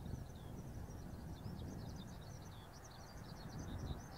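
Small birds chirping in quick, continuous twitters over a low, steady rumble from the Kawasaki C-2's twin CF6 turbofans at taxi idle, heard faintly.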